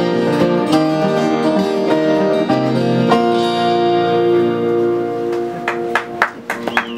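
Several acoustic guitars strum the last bars of a folk song and land on a final chord about three seconds in, which rings and slowly fades. Near the end a few sharp, scattered claps start up.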